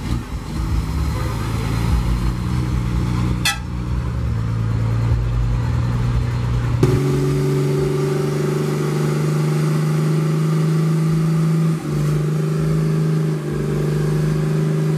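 A customized truck's engine rumbling low. After a cut about seven seconds in, it is held at high, steady revs while its rear tyre spins in a smoking burnout.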